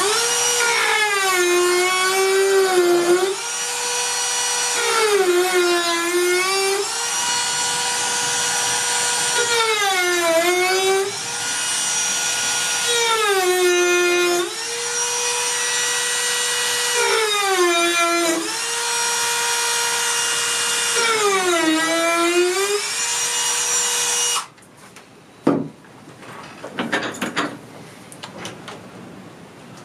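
A Dremel rotary tool runs with a steady whine while it cuts grooves into the wood. Its pitch sags each time the bit is pressed into the wood and climbs back as it eases off, several times over. It switches off about 24 seconds in, followed by a light knock and handling.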